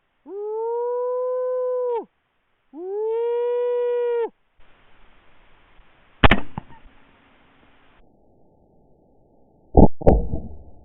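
Two long, steady coyote howl calls from a predator call, each rising into a held note and dropping off at the end. Then comes one sharp, loud rifle shot about six seconds in, and two more loud bangs close together near the end.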